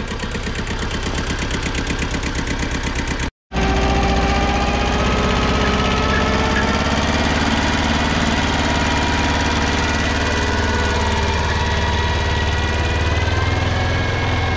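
Small Kubota compact tractor's engine running steadily under load as it pulls a mounted plough through the field. The sound cuts out for a moment about three seconds in, then the engine carries on a little louder, its pitch rising slightly toward the end.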